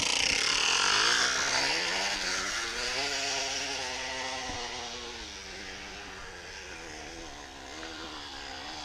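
A soda can set against a spinning bicycle wheel buzzes like a small motor, making a homemade pop-can 'dirt bike muffler'. The buzz rises in pitch briefly, then slowly drops and fades as the wheel slows.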